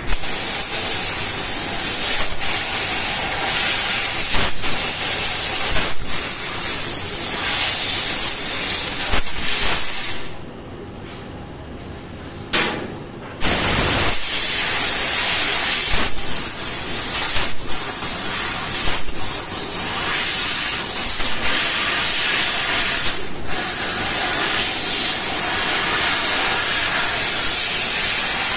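Senfeng SF3015G fiber laser cutter cutting sheet metal: a loud, steady hiss of assist gas jetting from the cutting-head nozzle, with scattered short clicks. The hiss stops for about three seconds a little before the middle, with one brief burst in the gap, then starts again.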